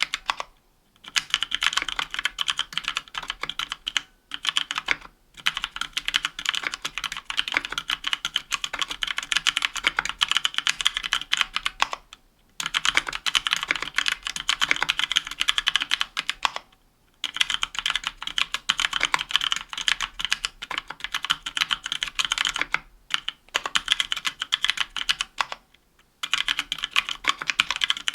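Continuous typing on a 60% mechanical keyboard with an aluminum case and plate, stock Kailh Pro Purple tactile switches and GMK keycaps: fast runs of keystroke clacks broken by brief pauses.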